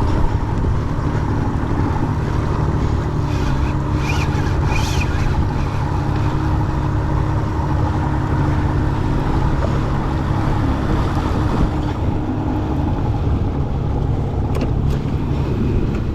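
Small boat's motor running steadily, with water and wind noise. A faint, brief high whine comes about four to five seconds in.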